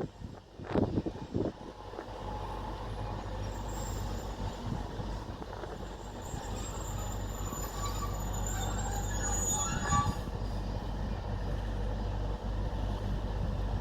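Class 153 diesel railcar running along the line, heard on board: a steady low rumble of the underfloor diesel engine and wheels on rail. A few knocks in the first second or two, a faint high-pitched wheel squeal from about four to ten seconds in, and a sharp click near ten seconds.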